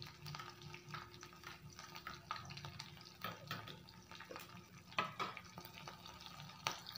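Green chilli pieces and curry leaves frying in hot oil with cumin and mustard seeds in a kadhai: a faint sizzle with scattered irregular crackles and pops, a few louder ones about three and five seconds in.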